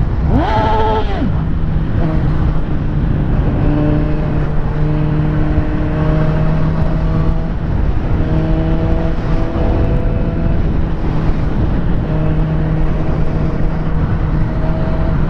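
Vehicle engine running at a steady pitch under heavy road and wind noise, its pitch lines fading in and out. A short rising-and-falling pitched sound comes about half a second in.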